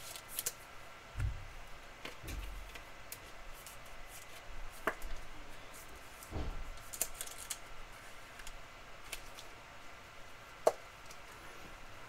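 Faint handling noises of trading cards and plastic card holders on a table: scattered light clicks and taps, a few soft low thumps, and one sharper click near the end.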